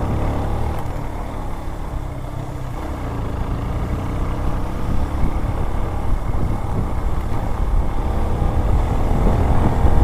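Motorcycle engine running as the bike rides along, steady and getting a little louder toward the end.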